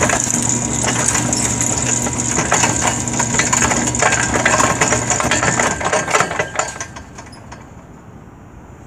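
Electric linear slide gate opener running: a steady motor hum with clattering and rattling as the gate moves. The hum stops after about six seconds, and the rattling dies away about a second later.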